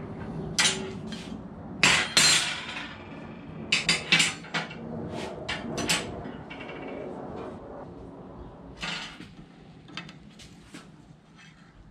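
Steel rod pieces and hand tools clinking and knocking against a steel welding table as they are handled and set down: a run of sharp metallic clanks, loudest about two seconds in, thinning out to a few lighter taps in the second half.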